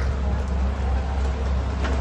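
A steady low hum of kitchen machinery, with a light tap near the end as a silicone spatula goes into the pan of cream sauce.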